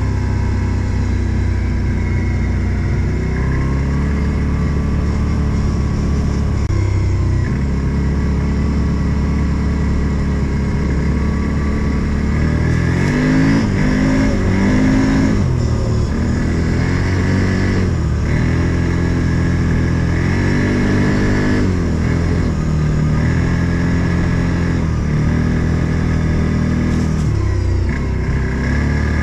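Odes 800 off-road vehicle's engine running under load. It holds fairly steady revs at first, then from about halfway through the revs repeatedly rise and fall as it is driven over rough ground.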